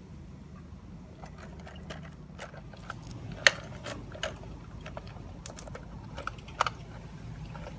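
Scattered small clicks and scrapes from a diecast model Heil Half/Pack front-loader garbage truck being moved by hand over dirt, as its wheels and loose parts tick, with one sharp click about three and a half seconds in. A low steady rumble sits underneath.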